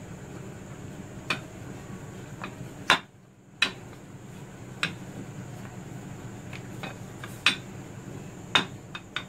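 Wooden rolling pin knocking and clacking against a marble slab as dough wrappers are rolled out: sharp single knocks every second or so, the loudest about three seconds in, over a steady low hum.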